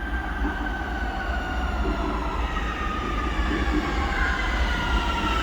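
Warsaw Metro subway train running, a steady low rumble under an electric motor whine that falls slowly in pitch.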